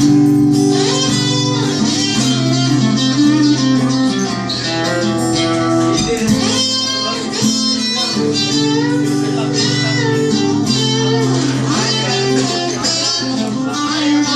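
Guitar music: an instrumental passage with sustained bass notes under melodic guitar lines.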